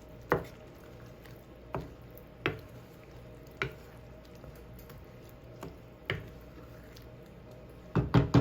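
A spoon knocking against a pan now and then while onion and red peppers are stirred into thick salsa, with a quick run of louder knocks near the end.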